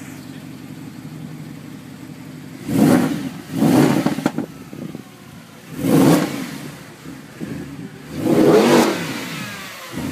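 Mercedes-Benz SLS AMG's 6.2-litre V8 idling steadily, then revved four times in quick blips, about three seconds in, just before four seconds, at six seconds and a longer one near eight and a half seconds, each falling back to idle.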